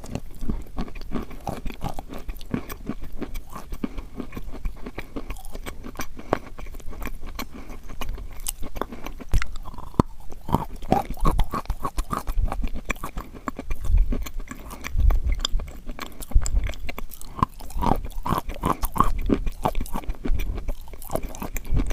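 Close-miked chewing of crunchy chalk, with dense, irregular crackling and crunching throughout and a few heavier, deeper bites in the second half.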